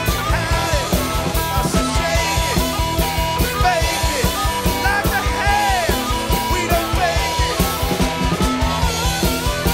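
Live rock band playing: a harmonica playing bent, sliding notes over electric guitars and a drum kit keeping a steady beat.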